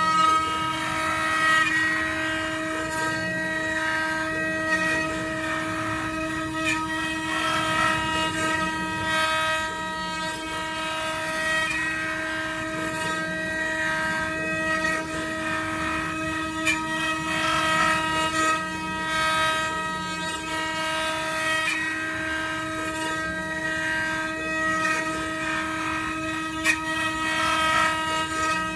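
Multi-head 4-axis CNC router running, its spindles whining steadily with several even tones while the cutters carve wooden blanks held on rotary axes, with a haze of cutting noise and a few sharp ticks.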